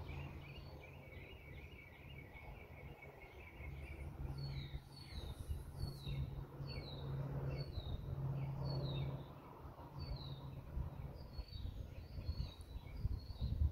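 Small songbirds calling: a fast, high trill for the first few seconds, then a run of short, high, down-slurred chirps repeated a little more than once a second, over a steady low hum.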